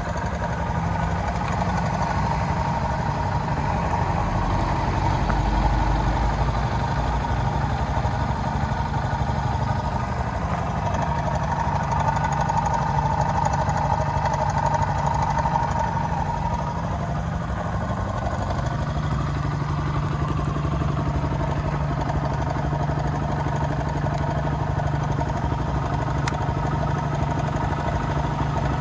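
Kawasaki KLX125's single-cylinder four-stroke engine idling steadily, its low hum shifting slightly in tone about two-thirds of the way through.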